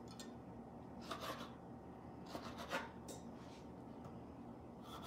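Kitchen knife slicing through a tomato onto a wooden cutting board: a few faint, soft cuts about a second apart.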